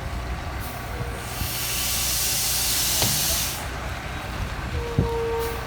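Air hissing from a Kenworth T800 truck's air brake system for about two seconds, over the steady low drone of its diesel engine; near the end a short steady tone comes in.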